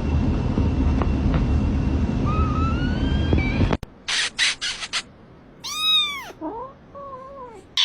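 Kitten meowing: faint rising mews over a low rumbling noise, then, after an abrupt cut, four short hissy bursts, one loud meow that rises and falls in pitch about six seconds in, and a few softer short mews after it.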